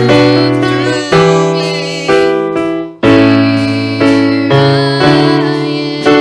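Keyboard, in an electric-piano sound, playing slow sustained chords that change about every second or two, with a short drop in level just before three seconds in.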